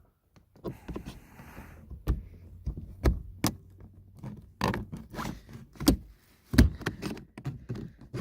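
Pry tool working under the plastic master power window switch panel in a Mazda 6 door trim: a string of sharp plastic clicks and knocks, with a short scrape about a second in, as the panel's retaining clips resist.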